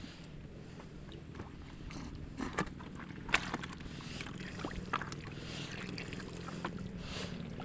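Engine driving a water pump, running steadily, with scattered sharp clicks and knocks over it.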